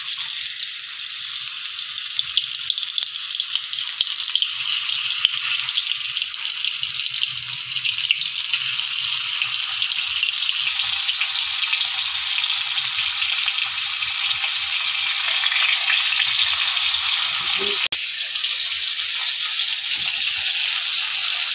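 Pieces of fish sizzling as they fry in hot mustard oil in a kadai. The sizzle builds over the first several seconds as more pieces go in, then holds steady, with one very brief break near the end.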